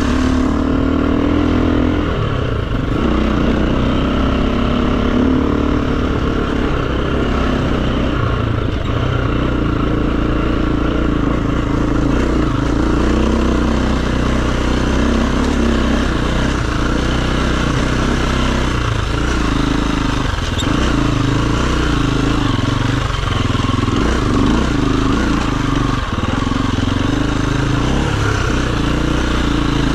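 Enduro dirt bike engine running at a fairly steady throttle, with a few brief dips in engine note in the second half.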